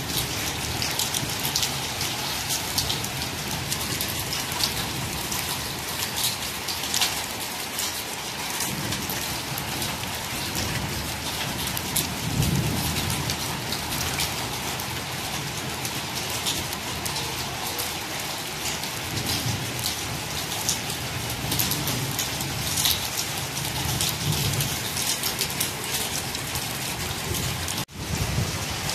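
Rain falling on a flat concrete rooftop, a steady dense patter of drops, with low rumbles swelling now and then.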